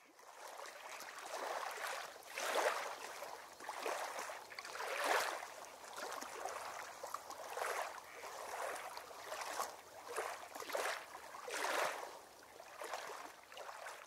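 River water rushing and splashing in repeated surges, roughly one a second.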